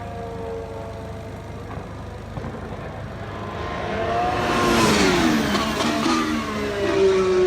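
Formula 1 car's turbocharged V6 engine passing at speed. It grows louder from about three and a half seconds in, peaks around five seconds, and its pitch falls as it goes by. Other cars' engines are heard faintly and steadily.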